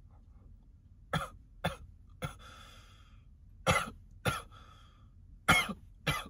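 A man coughing hard after smoking a blunt: seven harsh coughs, mostly in pairs, with a wheezing breath drawn between the first ones. The coughing comes from smoke-irritated lungs.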